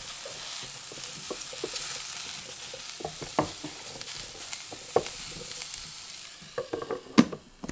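Mushrooms sizzling in hot oil in a non-stick electric frying pan, with clicks and taps as rubber tongs turn them over. The sizzle fades near the end, and the loudest event is a sharp clack.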